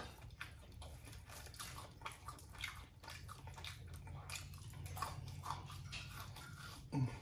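Faint wet crackling and squelching of a boiled crawfish being broken open and peeled by hand, with scattered small clicks, then biting into the meat near the end, over a faint low hum.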